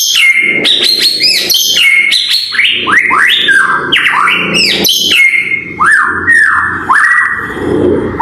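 Pied ('blorok') white-rumped shama singing loudly: a fast, unbroken string of short whistled notes that arch up and down, several a second, mixed with sharp clicks.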